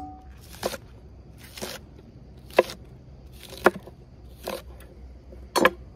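Kitchen knife chopping green onions on a wooden cutting board: six separate cuts, about one a second, each a sharp knock of the blade striking the board.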